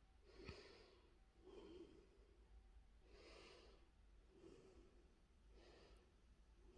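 Near silence with faint breaths close to the microphone, five soft puffs about a second and a half apart, over a low hum.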